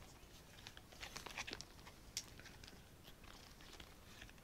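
Faint rustling and crinkling of a red fabric item being handled and pulled apart by hand, with a cluster of small crackles about a second in and a sharper tick just after two seconds.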